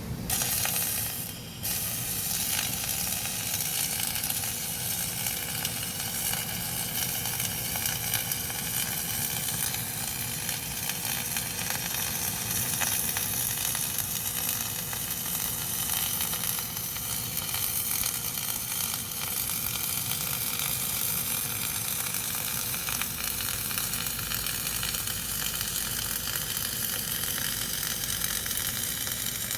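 CO2-shielded MIG welding arc crackling steadily, like bacon frying. It starts just after the beginning, breaks off for a moment about a second and a half in, then strikes again and keeps going evenly.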